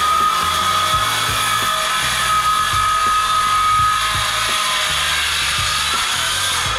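Milwaukee M18 Fuel cordless circular saw cutting through a solid wood worktop, its motor holding a steady high whine under load over the noise of the blade in the wood. Background music with a beat plays underneath.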